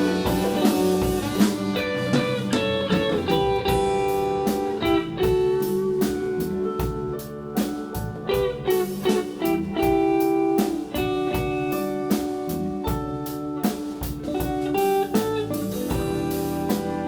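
Live band playing an instrumental, blues-tinged passage with guitar to the fore over drums, with held notes throughout.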